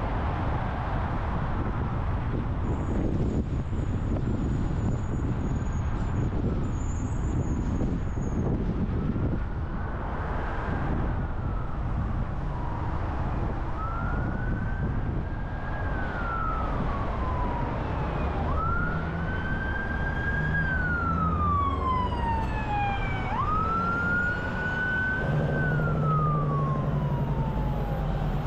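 An emergency-vehicle siren wails in slow rising-and-falling sweeps that become clear and strong in the second half. Under it runs the steady rumble of a car's road noise at highway speed.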